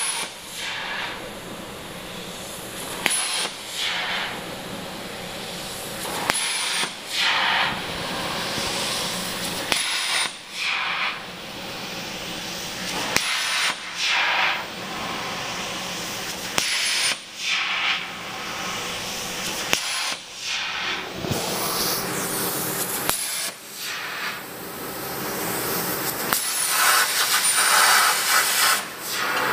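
CNC plasma cutting torch piercing holes in a steel sheet: about every three seconds a short high-pitched tone, then a loud hiss for about a second as the arc fires, with a steady air hiss between. Near the end the arc runs longer, for about three seconds.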